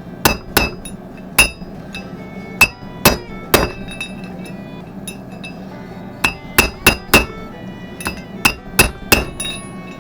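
Hammer striking metal about fourteen times in quick sets of two to four blows, each with a bright metallic ring: a wheel bearing race being driven into a 1992 Nissan pickup's front hub until it seats.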